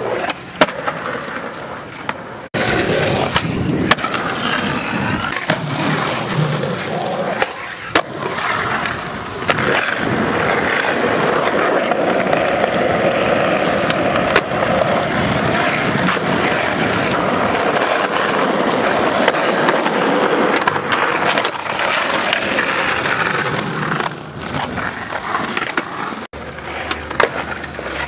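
Skateboard wheels rolling over rough concrete, a continuous gritty rumble. Now and then there are sharp clacks as the board is popped and landed on tricks.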